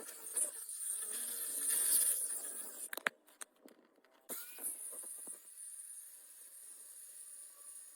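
Hand work on metal parts: a hissing, scraping noise with a sharp click about three seconds in, a brief pause, then the scraping again.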